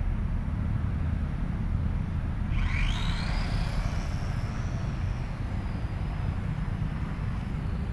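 A homemade RC plane's motor and propeller whine rises sharply in pitch about two and a half seconds in as the throttle opens, then holds high as the plane flies. A steady low rumble runs underneath.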